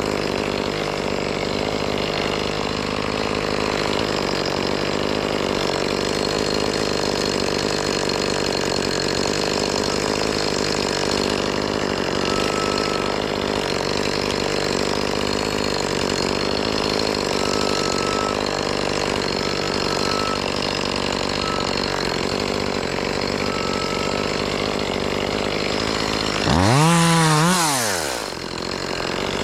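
Chainsaw running at a steady speed, then revved hard near the end, its pitch rising and falling back within about a second and a half.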